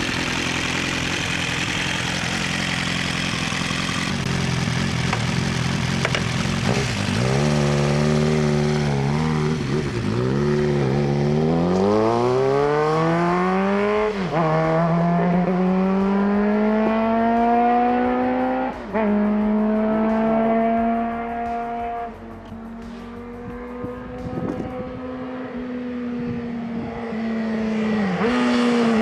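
Kawasaki GPZ900R inline four-cylinder engine running steadily, then accelerating with its pitch climbing. It drops sharply twice at gear changes, holds a steady note, and eases off near the end.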